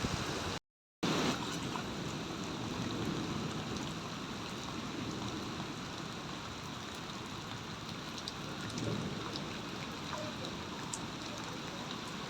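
Heavy rain falling in a steady, even hiss with scattered faint drop ticks. The sound cuts out completely for a fraction of a second near the start, then the rain resumes.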